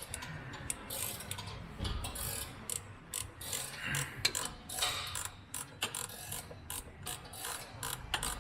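Hand ratchet wrench clicking in quick, irregular strokes as it turns a crankshaft seal puller.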